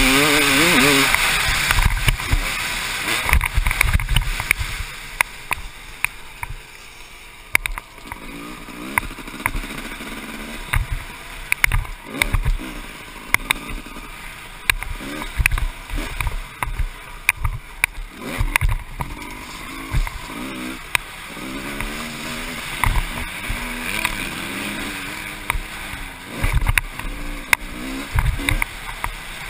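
1996 Honda CR250 single-cylinder two-stroke engine revving up and down as the dirt bike is ridden, heard from a helmet-mounted camera with wind noise and knocks from the bumps. It is loudest at the start and eases off about six seconds in.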